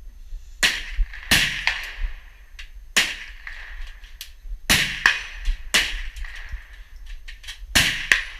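Gunshots at a shooting range: about seven loud, sharp shots at irregular intervals, several in quick pairs, each with a short ringing tail, and a few fainter shots between them.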